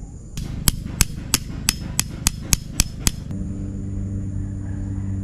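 A hammer driving a tent peg: about nine sharp strikes, roughly three a second and getting slightly quicker. The strikes stop suddenly a little past three seconds in, and a steady low hum takes over.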